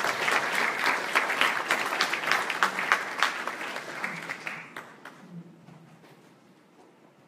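Audience applauding: dense clapping that thins out and dies away about five seconds in.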